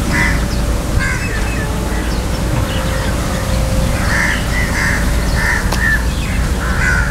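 Crows cawing: two harsh caws in the first second or so, then a quicker run of about six from about four seconds in, over a steady low rumble.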